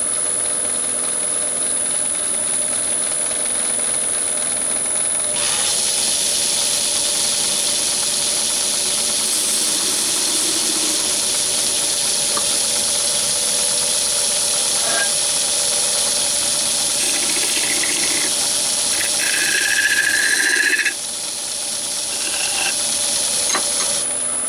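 Metal lathe running with a steady whine while a tool cuts brass, a hissing cut that starts about five seconds in. Brief squealing from the cut comes near the end.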